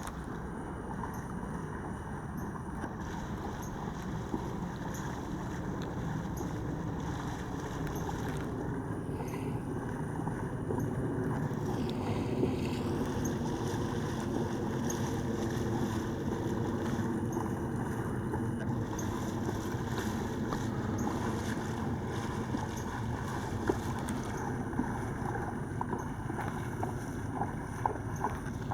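Steady rush of flowing river water with wind on the microphone, swelling a little partway through, and a few short sharp knocks or splashes near the end.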